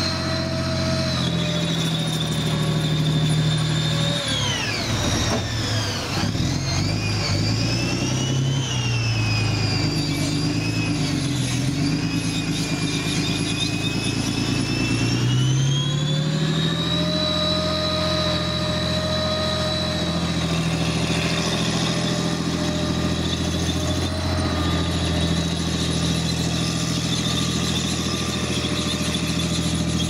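Challenger armoured recovery vehicle's V12 diesel engine and tracks as it manoeuvres, with a high whine over the engine. The note drops about four seconds in, wavers up and down, then climbs again around the middle as it puts out dark exhaust smoke, and holds steady after that.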